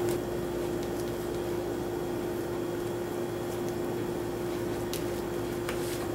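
A steady, even-pitched hum with a low haze of room noise, over which a plastic spatula spreads thick cream cheese filling in a foil pie tin, giving a few faint clicks near the end.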